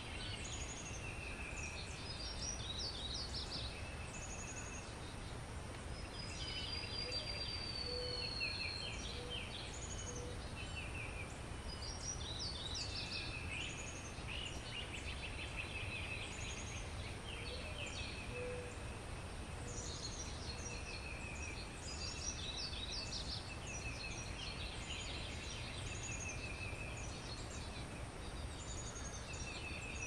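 Many small birds chirping and twittering in fast, overlapping trills, with one long falling whistle about seven seconds in, over a steady low background rumble.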